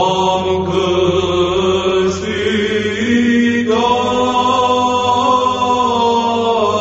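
Romanian Orthodox church chant: long held, melismatic sung notes over a steady low drone (ison). The melody moves to a new note about halfway through.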